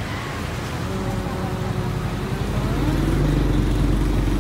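A motor vehicle's engine running close by, a steady low rumble that grows louder about three seconds in, with a rising pitch in the middle, over faint background voices.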